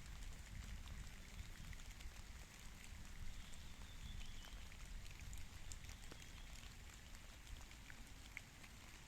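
Light rain falling, with scattered individual drops ticking and a low steady rumble underneath.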